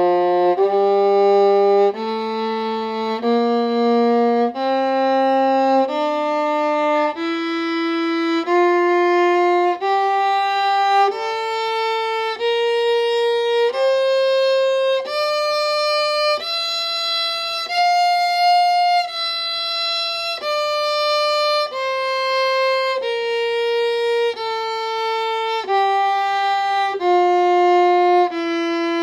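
Viola playing a two-octave F major scale in third position, bowed in slow half notes of about a second each: it steps up from the low F on the C string to the top F about two-thirds of the way through, holds it a little longer, then starts stepping back down.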